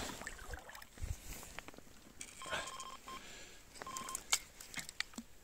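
Electronic carp bite alarm on the rod rest beeping, two short runs of the same steady tone, which signal a take by a fish. It is mixed with sharp clicks and knocks of the rod and gear being handled.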